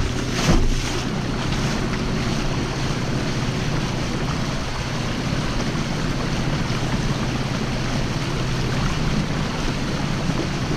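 Small boat running at speed under a Torqeedo 1003 electric outboard: a steady rush of water along the hull and wake, with wind on the microphone and a steady low hum. A brief louder swell comes about half a second in.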